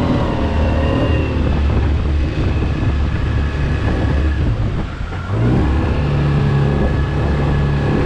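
Suzuki 15 hp tiller outboard running at speed, pushing a small rigid-hull inflatable dinghy on a 9.25 by 9 pitch prop. About five seconds in, the engine note dips briefly, then climbs back up and holds steady.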